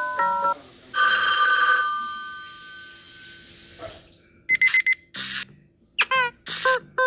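Samsung Galaxy S25 ringtones. A mallet-like melody ends, then a single bell-like chime rings and fades over about three seconds. About four and a half seconds in, another electronic ringtone starts with short rhythmic bursts and chirping glides.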